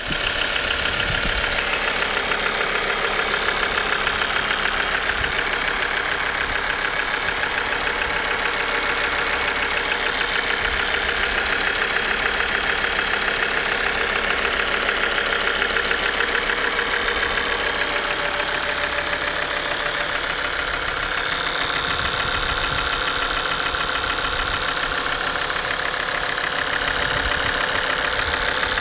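Car engine idling with a steady, rapid ticking clatter: the noise of failing fuel injectors and a failing oil pump, as the owner found.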